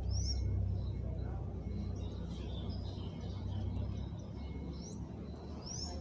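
Short, high, rising chirps of a small songbird, one just after the start and one near the end, with faint twittering in between, over a steady low rumble.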